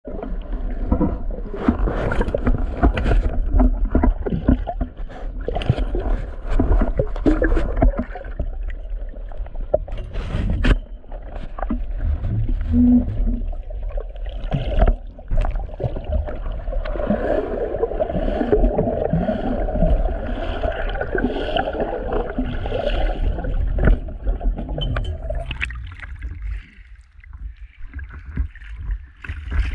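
Water splashing and sloshing, with scattered knocks and handling noise over a steady low rumble. It quietens near the end.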